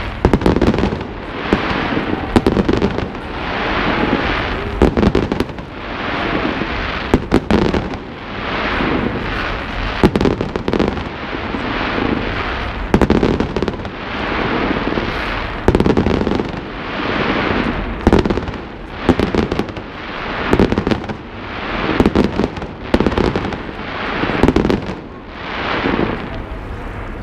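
Fireworks display going off in quick succession: many sharp bangs mixed with rumbling swells that rise and fade every couple of seconds.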